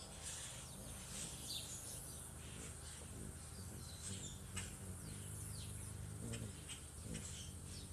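Hummingbirds chipping: short, high, downward-sliding chirps scattered through, with a low steady hum underneath.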